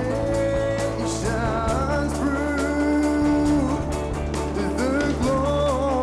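A male singer performing a song live into a microphone, with long held notes that bend in pitch, backed by a band with guitar and a steady bass line.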